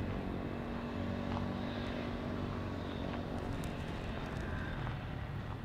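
A steady low engine drone from a distant motor vehicle or aircraft, with a few faint ticks that fit footsteps on gravelly ground.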